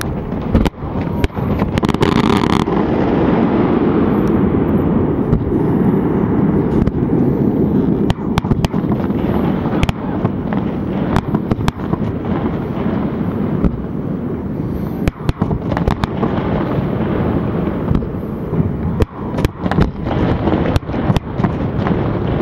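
Fireworks display: many sharp bangs and crackles in quick succession over a continuous low rumble, with a few faint whistles.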